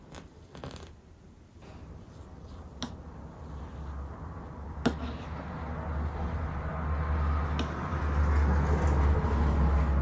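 Espresso machine running, a low steady hum that builds through the second half as coffee streams into a cup of milk foam, with a few light clicks in the first few seconds.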